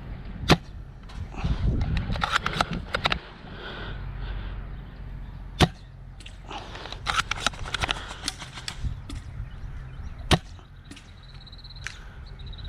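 Airsoft guns firing: three sharp single shots about five seconds apart, with runs of rapid clicking shots between them.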